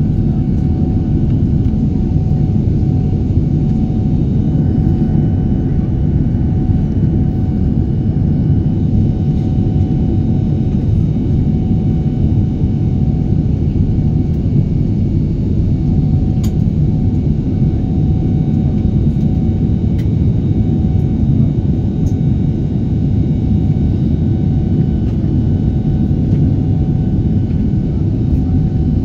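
Jet airliner engines in the climb after takeoff, heard from inside the cabin: a steady low rumble with a faint steady whine above it.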